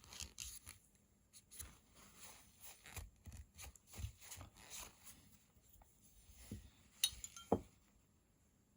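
Scattered small clicks and light rubbing as the parts of a disassembled Rockstead Higo II folding knife are handled and cleaned, with two sharper clicks a little after seven seconds in.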